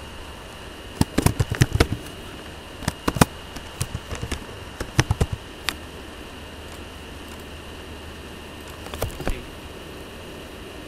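Computer keyboard keys clicking in quick, irregular runs while a short word is typed, then a couple of mouse clicks near the end, over a steady faint hum.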